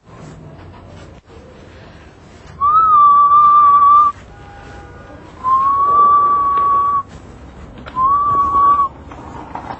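Three long, steady whistled notes, each sliding up briefly at the start and then held for about a second or more, the first and longest about two and a half seconds in.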